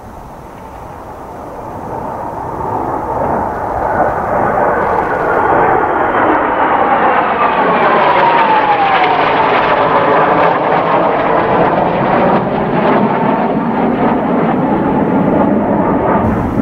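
A formation of Kawasaki T-4 jet trainers passing overhead. Their jet noise builds to a loud rush, with a whine that falls in pitch as they go by, and it cuts off suddenly at the end.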